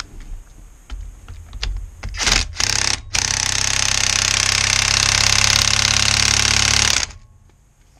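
Cordless DeWalt impact driver hammering on a fastener on the engine. It fires a couple of short bursts, then runs steadily for about four seconds and stops abruptly.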